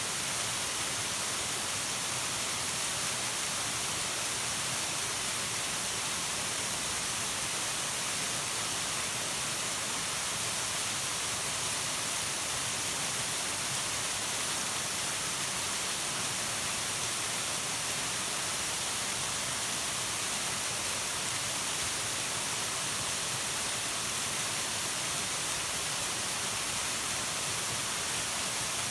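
Waterfall's water falling and splashing as a steady, even rushing noise that does not change.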